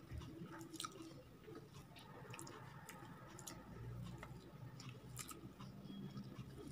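Faint chewing of a mouthful of upma (semolina porridge) eaten by hand, with scattered small mouth clicks.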